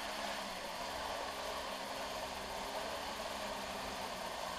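Kawasaki X2 stand-up jet ski's two-stroke engine running steadily under way, mixed with the hiss of water and spray rushing past the hull.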